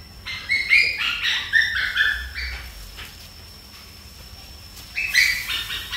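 Animal calling: a quick run of short, high-pitched calls, a dozen or so in a couple of seconds, then a second cluster near the end, over a faint steady high whine.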